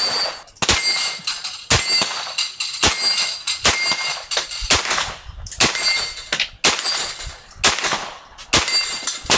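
Rifle firing a steady string of single shots, roughly one a second, at steel targets. Many shots are followed by the brief metallic ring of a steel plate being hit.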